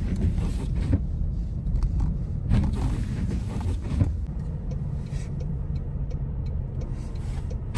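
Car driving, a steady low road and engine rumble heard inside the cabin, with a few sharp knocks about one, two and a half and four seconds in.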